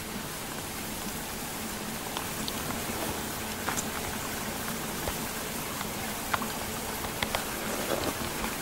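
Steady hiss of wet snow falling through snow-laden conifers, with scattered light ticks of flakes and drops landing on branches.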